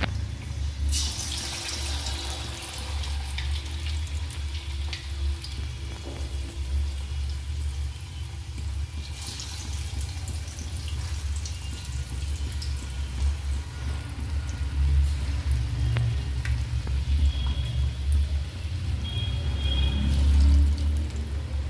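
Batter-coated potato slices deep-frying in hot oil in a kadhai: continuous sizzling and crackling that flares up about a second in and again around nine seconds as more pieces go into the oil, over a low steady hum. Near the end a metal spoon stirs the pieces in the pan.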